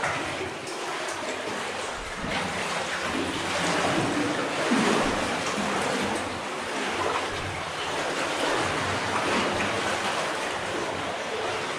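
Water splashing and rushing in a mine adit, a continuous noise that swells and eases slightly.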